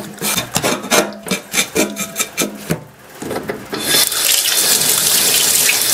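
Scales being scraped off a whole flounder in quick strokes, about five a second. About four seconds in, a tap starts running, water splashing onto the fish in a stainless-steel sink.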